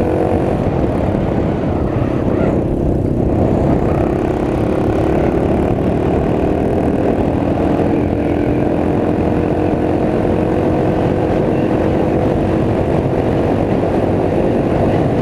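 Small Honda Cub scrambler's single-cylinder engine running through its long exhaust while riding at a fairly steady speed, its pitch drifting slowly up and down, with a low rumble of road and wind underneath.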